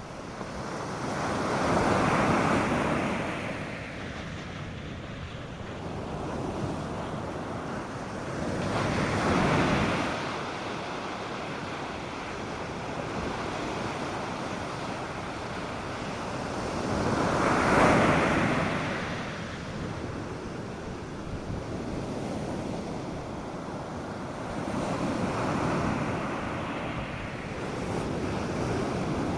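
North Sea surf breaking on a beach under a steady wash of water and light wind. Four larger waves swell up and die away, about every eight seconds.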